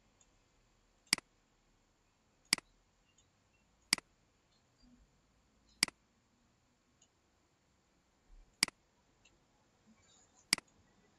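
Computer mouse button clicking, six single sharp clicks spaced irregularly a second or two apart.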